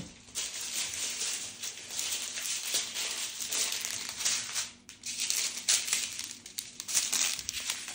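Small plastic bags of diamond painting drills being handled and shuffled, crinkling, with a brief let-up about five seconds in.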